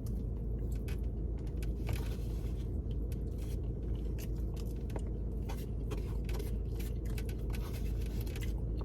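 Small scrapes and scattered clicks of a utensil working food in a takeout container, over a steady low hum of the car cabin.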